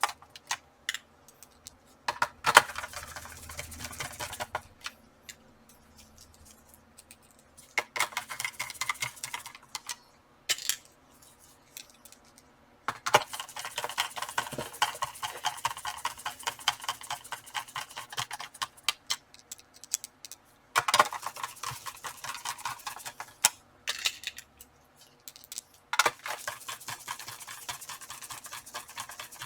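Small screwdriver driving screws back into a laptop's plastic case, with metal bit and screw threads making rapid fine clicking in about five bursts of a few seconds each, separated by short pauses.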